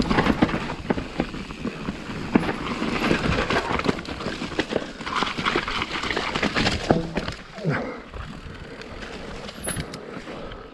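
Mountain bike rattling over a rough trail, with tyre noise and a stream of sharp knocks and clatter from the bike and the ground. The clatter eases somewhat about two-thirds of the way through.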